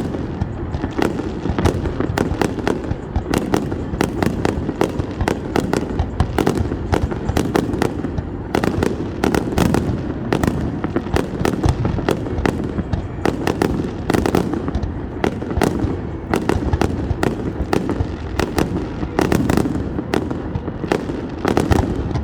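Fireworks going off in rapid succession: many sharp bangs and pops a second, without a break, over a steady low rumble.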